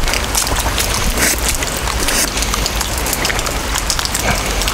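Steady rain, with many sharp ticks of drops striking close to a helmet-mounted camera.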